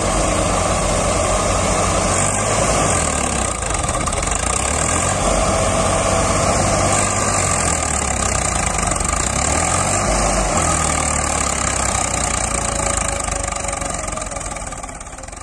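Swaraj 855 FE tractor's three-cylinder diesel engine running steadily under load as it drags a blade implement through loose sand. The sound fades out near the end.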